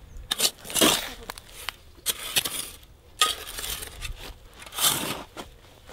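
Irregular crunching scrapes in the dry, stony earth covering a charcoal kiln, about five in a row.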